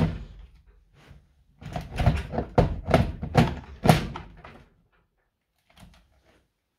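DeWalt Flexvolt battery pack being slid onto a DeWalt charger and pushed down into place: a quick run of hard plastic knocks and clatter over about three seconds, then a couple of faint clicks.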